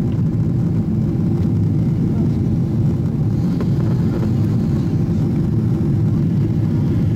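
Steady low roar inside the cabin of an Airbus A380 airliner in flight: engine and airflow noise heard through the window seat.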